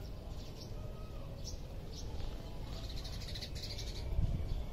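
Birds chirping: single short high calls about a second and a half and two seconds in, then a quick run of chirps around three seconds in, over a steady low rumble that swells briefly near the end.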